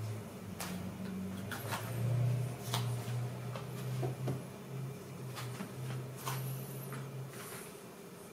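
Scaletrains CN ET44AC model locomotive running slowly along the track: a steady low hum that shifts in pitch a few times, with scattered sharp clicks.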